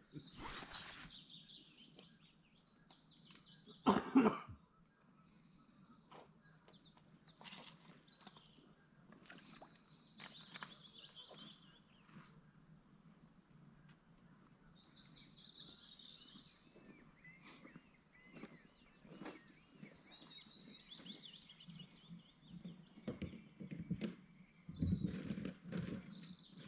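Outdoor ambience with small birds singing, repeated short chirping phrases that fall in pitch, and a few faint clicks. A brief louder noise comes about four seconds in.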